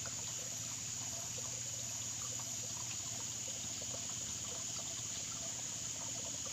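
Water trickling and burbling in many small irregular drips, under a steady high-pitched drone of crickets or other insects.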